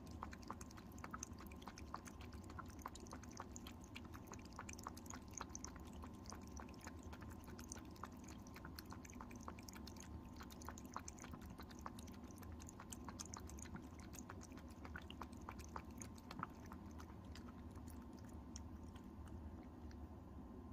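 Cat lapping water from a bowl: faint, quick wet clicks of the tongue a few times a second, thinning out near the end as it stops drinking.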